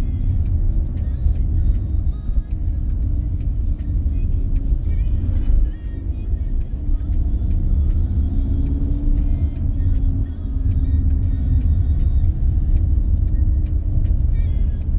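Cabin noise of a moving car: a steady low rumble of the engine and tyres on the road, with a brief dip about six seconds in.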